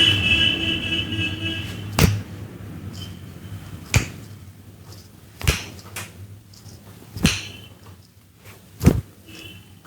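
Sharp smacks from a barber's hands during a vigorous head massage: five separate strikes at uneven gaps of about one and a half to two seconds, with a fainter one between them. They follow a high steady tone that lasts about two seconds and then stops.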